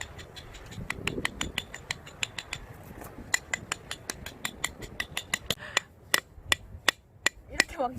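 A rapid series of sharp clicks or taps, sparse at first and then quick and regular at about four or five a second from a few seconds in.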